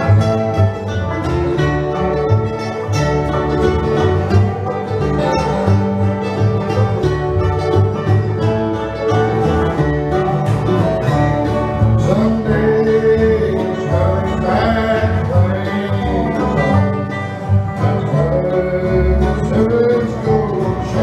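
Live acoustic bluegrass band playing a tune: upright bass walking a steady bass line under strummed acoustic guitar and picked mandolin.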